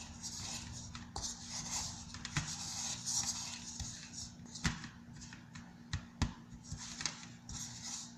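A stick stirring a thickening slime mixture of white glue and baking soda: repeated scraping with a few sharp knocks of the stick against the container.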